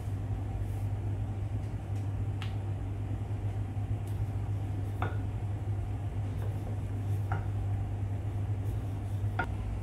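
Steady low hum with a handful of light clicks and knocks as a wooden rolling pin rolls dough flat on a board.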